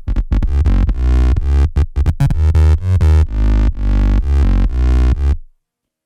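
Loop station beatbox performance: layered vocal beatbox loops with very heavy bass and choppy, stuttering rhythm, sounding like electronic dance music. It cuts off abruptly about five and a half seconds in.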